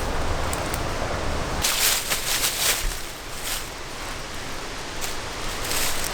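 Rustling of dry leaves and brush in a few irregular bursts, over a low rumble of wind that fades after the first second and a half.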